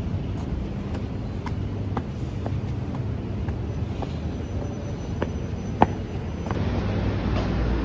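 Footsteps climbing stone steps: shoe heels click on the treads about twice a second, one step near the end struck harder than the rest, over a steady low outdoor rumble.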